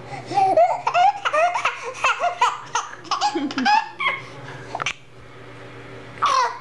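Baby laughing hard in a quick run of short belly laughs and giggles for about four seconds, then two more short laughs, the last a squeal that falls in pitch.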